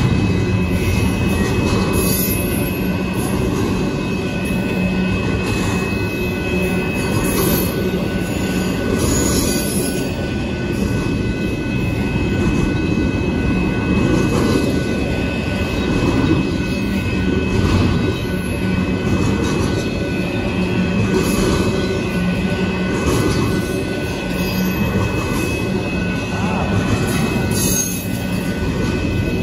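Union Pacific double-stack intermodal freight train rolling past at a grade crossing: a steady rumble and clatter of container cars and wheels on the rails, with a steady high-pitched ringing tone over it throughout.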